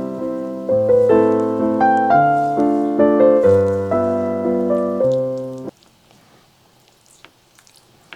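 Piano music: a gentle, evenly paced run of notes that cuts off suddenly about two-thirds of the way through. It is followed by a few faint small clicks.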